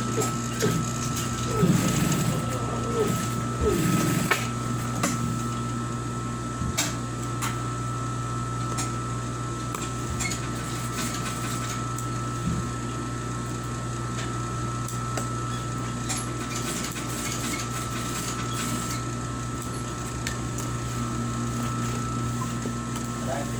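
A steady mechanical hum with a thin, high, steady whine over it and scattered light clicks; a voice is heard in the first few seconds.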